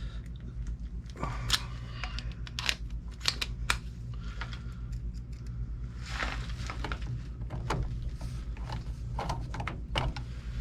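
Hands working with small parts and wiring, making scattered clicks, taps and rustles over a steady low hum.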